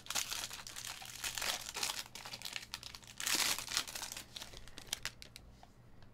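Foil trading-card pack being torn open and crinkled in the hands, the crackling loudest about three seconds in, then thinning to a few light clicks near the end.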